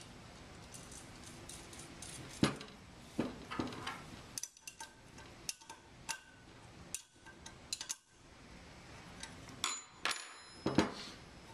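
Scattered metallic clinks and knocks of stainless steel sampler parts being handled and fitted together on a tabletop, with a brief metallic ring near the end.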